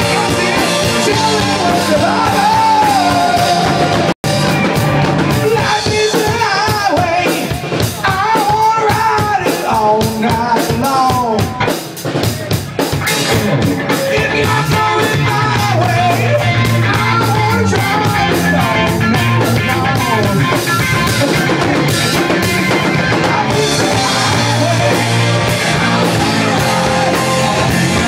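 Live rock band playing: a man singing into a microphone over a drum kit, electric guitar, bass guitar and keyboard. The sound cuts out for a split second about four seconds in.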